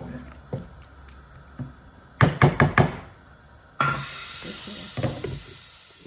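A wooden spatula stirring beans in a frying pan, then knocked about five times in quick succession against the pan. About a second later a lid goes on with a clatter, and a steady hiss follows with a few lighter knocks.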